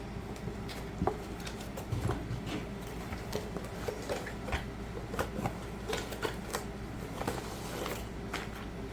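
Diamond painting kit and its packaging being handled while it is unboxed: irregular light clicks, taps and rustles, over a low steady hum.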